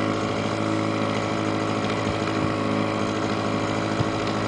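Small Evinrude outboard motor running steadily at trolling speed, an even hum.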